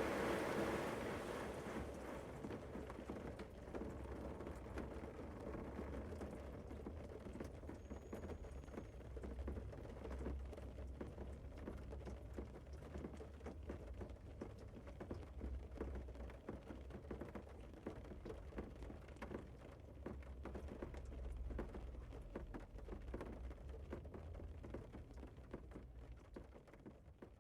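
Automatic car wash: a spray of water dies away about two seconds in, leaving water dripping and pattering over a low rumble, which fades toward the end.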